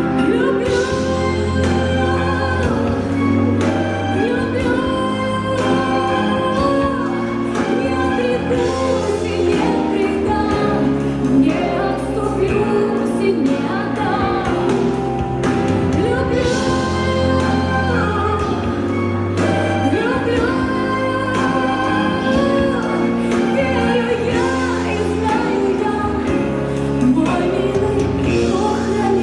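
Recorded song with female lead vocals over a steady bass line, playing loudly throughout as dance accompaniment.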